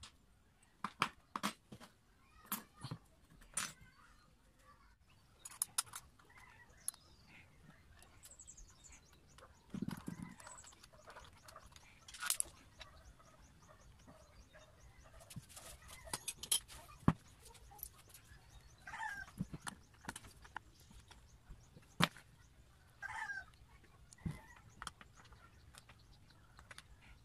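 Scattered clicks and knocks of an electric planer's metal parts and small bolts being handled and fitted by hand during reassembly, a few seconds apart. A few short animal calls sound in the background.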